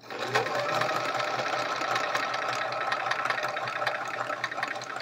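Sewing machine starting abruptly, its motor pitch rising for a moment, then running steadily with an even stitching rhythm as it sews quilt pieces.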